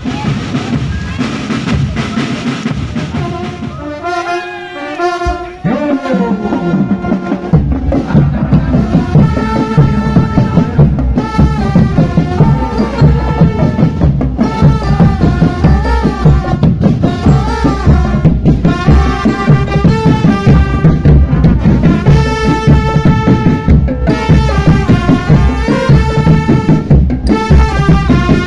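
Marching drum band playing: a steady drum beat with a melody over it, getting louder and fuller about seven seconds in.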